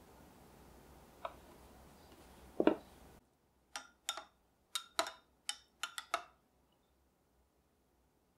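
A metal spoon stirring yogurt and cream in a glass measuring cup, clinking against the glass about eight times in quick succession over two or three seconds. Before the clinks, a single low knock.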